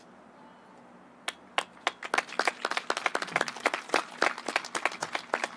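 A few people clapping, with sharp, distinct claps. The clapping starts about a second in, after a quiet stretch, and keeps going.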